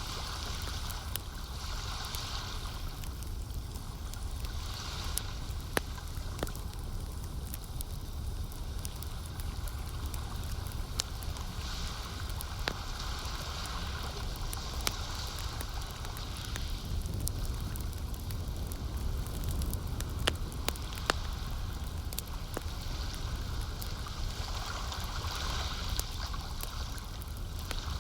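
Campfire crackling, with scattered sharp pops, over lake water lapping and washing in slow swells every few seconds, and a steady low rumble beneath.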